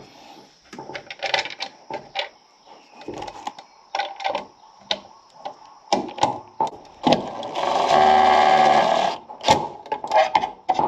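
Clicks and knocks of a GFCI outlet and its wires being handled and pushed into an electrical box. Near the end a small electric motor runs steadily for about a second and a half, a cordless drill or driver running in a mounting screw.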